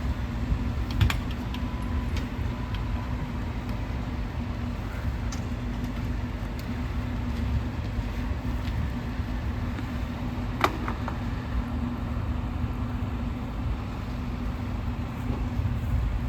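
Fire apparatus engine running steadily at idle, a low rumble with a steady hum. Sharp clicks about a second in and again about ten seconds in.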